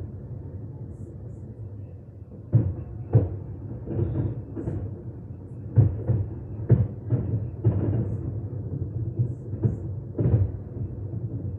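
Fireworks shells bursting in an irregular run of deep booms, some in quick succession, over a continuous low rumble. The bursts pick up after the first couple of seconds.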